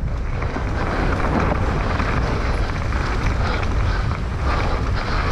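Wind buffeting the microphone over the rumble and rattle of a mountain bike riding fast down a rough dirt trail.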